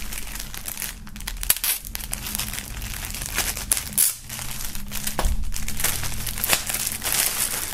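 Plastic shrink-wrap crinkling and tearing as it is cut and peeled off a pair of boxing hand wraps, with several sharp clicks and snaps along the way.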